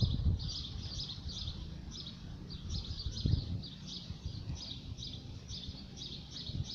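A small songbird chirping over and over in quick short notes, with low rumbling and a few bumps on the microphone beneath it.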